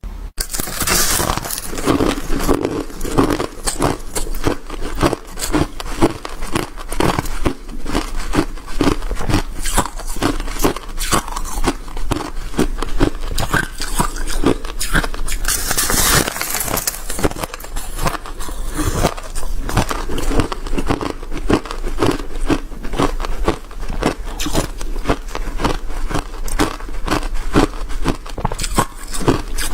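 Hard shaved ice and crushed ice being bitten and chewed close to the microphone: a dense, rapid run of crisp crunches, crunchy and squeaky.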